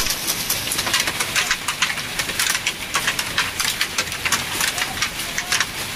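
Hailstones and rain pelting down in a dense, irregular rattle of sharp hits.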